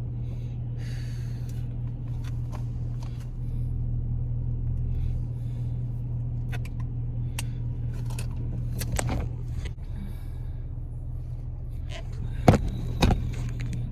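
A car engine runs steadily, heard from inside the cabin. There are a few light clicks, and two sharp knocks near the end.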